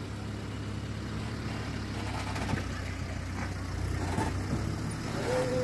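Shuttle vehicle's engine idling with a steady low hum.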